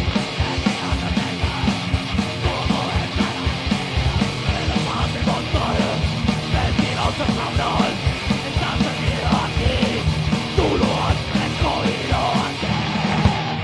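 Rock band playing live: drum kit with fast, closely packed kick-drum beats, electric guitar and bass guitar, and yelled vocals.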